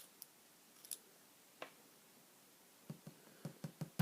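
Small metal clicks of tools working a euro cylinder lock as its key pins are worked out, then a quickening run of light knocks in the last second.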